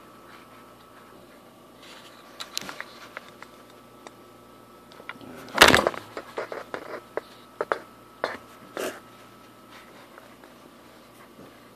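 Handling noise: scattered light clicks and knocks of hard objects being moved about, with one louder bump about halfway through as the camera is shifted. A faint steady high whine runs underneath.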